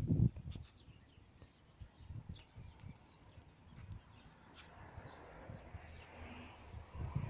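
Small birds chirping with short, scattered calls, over faint low thuds near the start and end.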